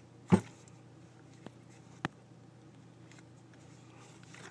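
Handling noise as a can of Coleman camp fuel is picked up and worked at: one loud knock about a third of a second in, two faint clicks a little later, and soft rustling near the end.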